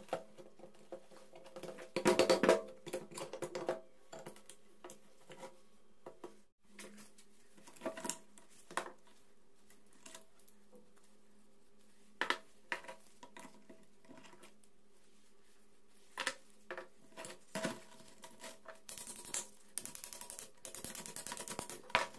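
Suzuki GS 150 crankcase and gearbox parts being handled during a teardown: scattered knocks and clinks of metal on metal and on the bench, louder about two seconds in, and a denser rustling clatter near the end.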